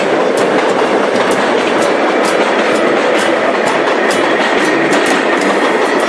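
Metro train running on the rails: a steady rumble with the wheels clicking over rail joints about twice a second, and a faint steady whine above.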